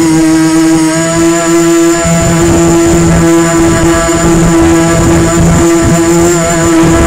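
Quadcopter drone's motors and propellers buzzing steadily, heard close up from its onboard camera, the pitch wavering slightly. A thin high whine sits above the buzz from about a second in.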